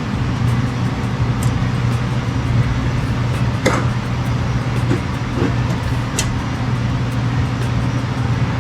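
Steady low mechanical hum over a constant background noise, with a few short, sharp clicks, the clearest about halfway through.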